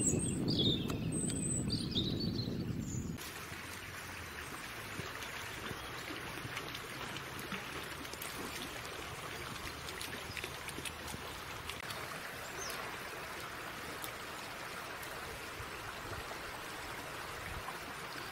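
Shallow river flowing steadily, a constant rushing hiss of water. For the first three seconds a louder low rumble and a few high bird chirps sit over it, cut off suddenly.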